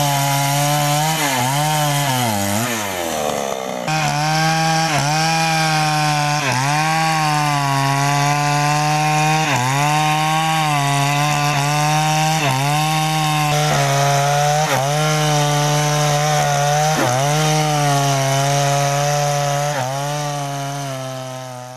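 New West 628 two-stroke chainsaw running at full throttle and cutting into sengon wood. The engine note sags again and again as the chain bites under load, then picks back up. The sound fades out near the end.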